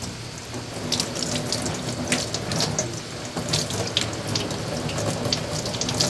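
Kitchen tap running into a stainless steel sink, the stream splashing over hands as small Japanese sardines (maiwashi) are rinsed and cleaned one at a time. Irregular small splashes and clicks come on top of the steady run of water.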